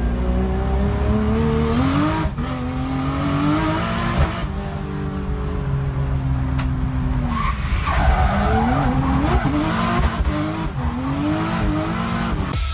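A racing car's engine is driven hard, its pitch climbing and then dropping again and again through gear changes. There is a stretch of tyre squeal about halfway through.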